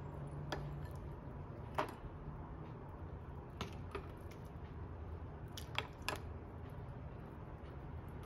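Serving ladle clinking against the pot and ceramic bowl as curry is spooned out, about seven sharp knocks, the loudest about two seconds in, over a low steady hum.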